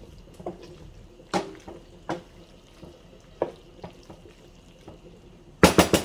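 A wooden spoon stirring drained macaroni and vegetables in a metal pot, with scattered scraping knocks against the pot. Near the end come several loud knocks in quick succession.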